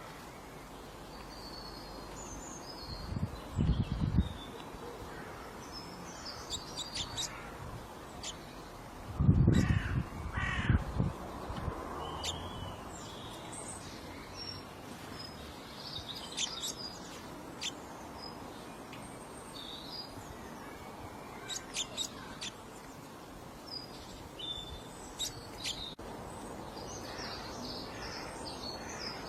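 Birds calling: loud, rough calls a few seconds in and again around ten seconds in, with short high chirps from small birds scattered throughout over a steady background hiss.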